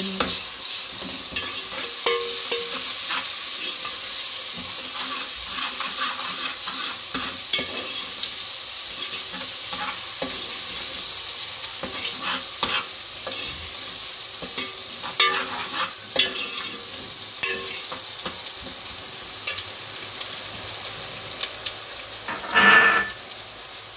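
Sliced onions and freshly added ginger-garlic paste sizzling steadily in hot oil in a metal pot, stirred with a steel ladle that knocks and scrapes against the pot. There is a louder brief scrape near the end.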